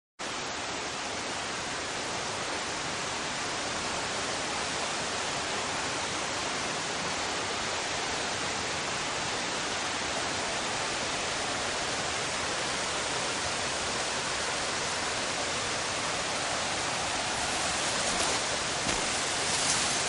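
Steady rushing of a waterfall's falling water, growing a little louder near the end.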